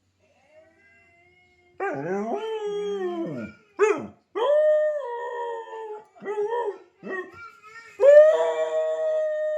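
Dog howling: a run of short rising-and-falling howls, then one long held howl starting about eight seconds in.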